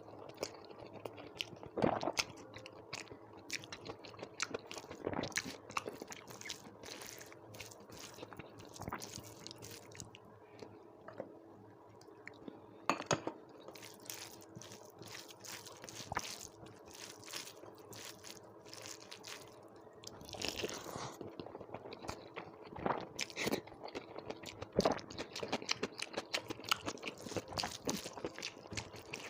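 Close-miked eating: a person crunching and chewing mouthfuls of a rice meal with dal, curries and salad, in irregular bites, over a faint steady hum.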